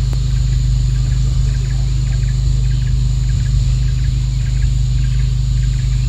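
Outdoor ambience: many short repeated chirps and a thin, steady high insect buzz over a loud, steady low drone.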